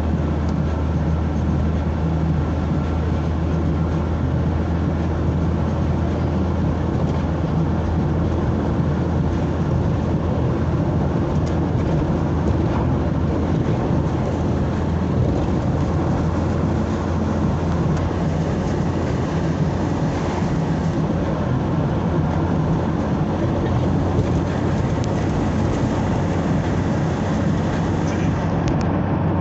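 Steady engine and road noise of a vehicle driving along a highway.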